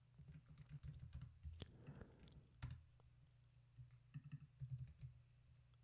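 Faint, scattered keystrokes on a computer keyboard, a few clearer clicks about two seconds in.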